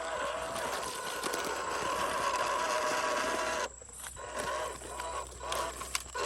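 Electric motor and gearbox of a 1/12-scale MN128 RC crawler whining as it drives, the pitch wavering with the throttle. About two-thirds of the way in the whine cuts off, then comes back in short stop-start spurts.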